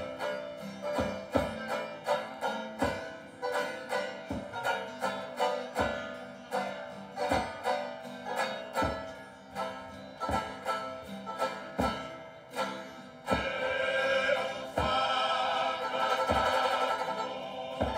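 Live Tongan tau'olunga dance music: plucked strings over a steady drum beat, with a group of voices coming in louder in full-throated singing about thirteen seconds in.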